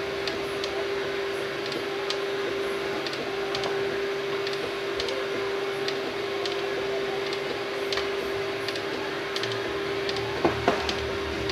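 3D printer running a print: a steady whine with scattered light ticks, a low rumble that comes and goes, and two sharper clicks near the end.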